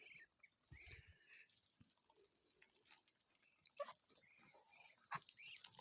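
Ducklings eating corn: faint, scattered wet clicks and ticks of their bills pecking and dabbling at the food, with a few soft peeps.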